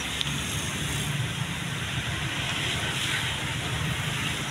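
Steady low rumble with an even hiss over it: continuous outdoor background noise with no distinct event.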